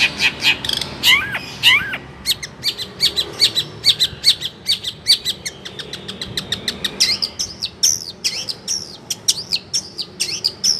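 A songbird singing a fast, varied song of quick sharp chirps and whistled notes that swoop up and down in pitch, several notes a second.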